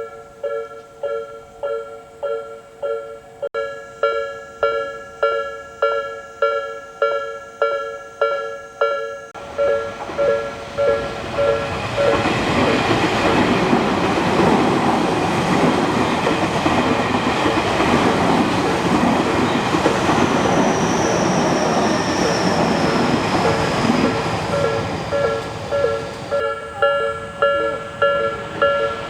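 Japanese level crossing's electronic two-tone warning bell dinging about one and a half times a second. About ten seconds in, a commuter train passes through the crossing and its running noise covers the bell for some fifteen seconds, with a falling high whine partway through. Near the end the train clears and the bell is heard plainly again.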